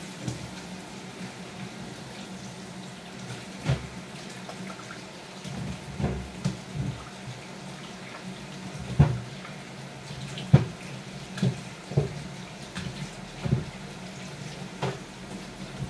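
Kitchen tap running steadily into a stainless-steel sink while peeled potatoes are rinsed under it, with about ten short knocks and clunks as they are handled and set down.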